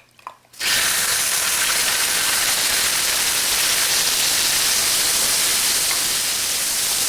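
Chicken pieces dropped into hot ginger-infused oil in an electric wok: after a couple of light clicks, a loud, steady sizzle starts about half a second in and keeps on as the chicken fries.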